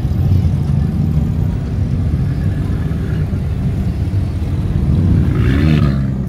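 Sports car engines rumbling at low speed as the cars pull away one after another, with one engine revving up and back down about five seconds in.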